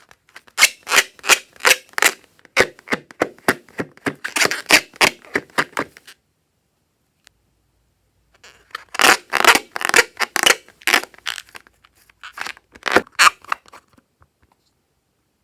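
Clear slime being squished and worked by hand, giving rapid sticky clicks and pops in two runs of about five or six seconds with a pause between.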